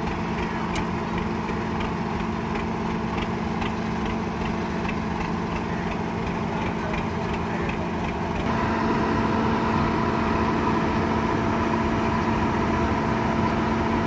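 Heavy farm diesel engines running steadily, with a light ticking about twice a second. About eight and a half seconds in, the sound changes abruptly to a louder engine hum with a higher steady whine.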